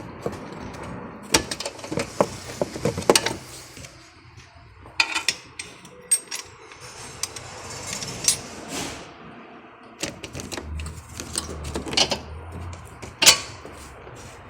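Metal tools and parts being handled: a scattered series of sharp clinks and knocks, with a low hum for a couple of seconds near the end.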